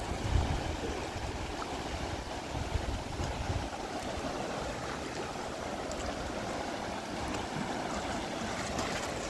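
A fast-flowing river rushing steadily over rapids and rocks. A low rumble sits under it for the first three and a half seconds.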